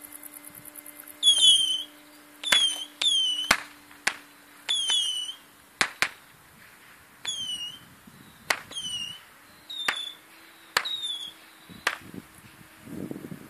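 A quick series of rockets fired from an RC plane: about a dozen short whistles, each falling in pitch over about half a second, with sharp cracks among them.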